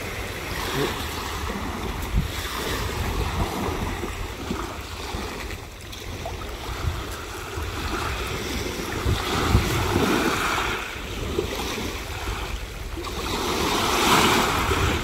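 Sea surf washing onto the beach, with wind buffeting the microphone; the wash swells louder a couple of times, most of all near the end.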